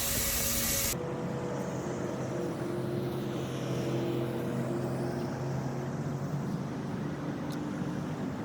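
A steady engine drone with a constant low hum, after about a second of loud hissing that cuts off suddenly.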